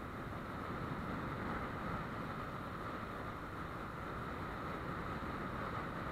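Motorcycle ridden at a steady speed: wind rushing over the helmet-mounted camera's microphone, with the engine's even running hum underneath.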